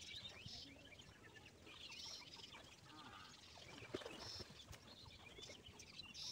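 Faint bird calls, short chirps repeated every second or two. About four seconds in comes a single soft splash as a swimmer plunges into the pond.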